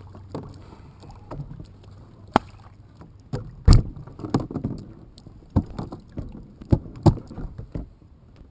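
Irregular knocks and thumps of gear being handled against a plastic fishing kayak, including a cooler being lifted and moved; the loudest is a heavy thump about four seconds in.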